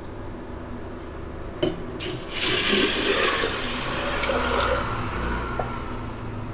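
Water poured from a steel pot into a steel container of drained, soaked jowar grains, splashing and filling: the fresh water of the daily soak change. The pour starts about two seconds in, after a single short knock, and tapers off near the end.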